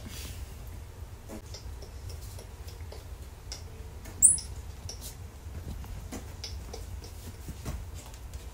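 Faint clicks and rustles as a squirrel monkey and a lemur clamber about on a leather couch and over a person, with one brief high-pitched squeak about four seconds in.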